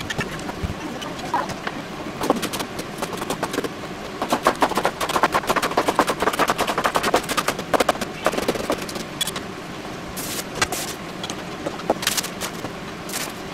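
Kitchen knife chopping green onion on a plastic cutting board: scattered knocks, then a fast, even run of chops in the middle. Near the end, a few short crinkles of plastic packaging.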